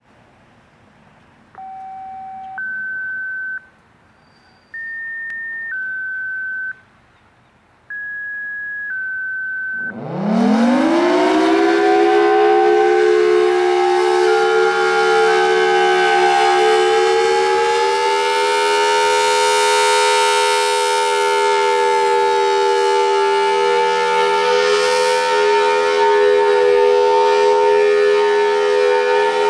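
Two-tone sequential radio activation tones from a scanner: three pairs of steady beeps, each tone about a second long. About ten seconds in, a Federal Signal Thunderbolt 1003A rotating civil defense siren starts up, its pitch rising quickly over a few seconds, then holds a loud steady wail.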